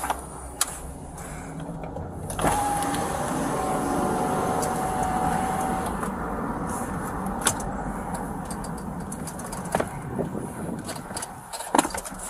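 Inside a patrol car: vehicle noise that swells about two and a half seconds in, with a steady whine for a few seconds, then eases off, broken by a few sharp clicks and knocks.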